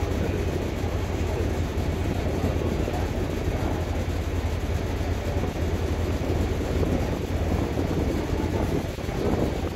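Steady low drone of a passenger ferry's engine heard on board while underway, mixed with rushing wind and water noise.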